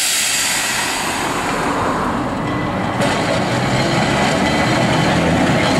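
Manx Electric Railway Car 2, a vintage electric tramcar, running slowly on its track: a steady rumble of wheels on rails and traction gear, louder from about three seconds in as the car comes close.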